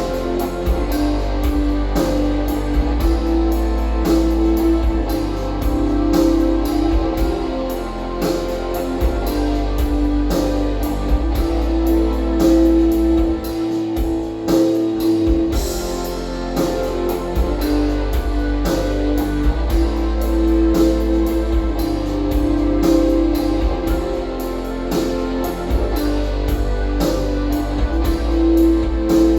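Rock music with guitar and drum kit, played back through an RCF Ayra Pro6 studio monitor. The bass drops out briefly about halfway through.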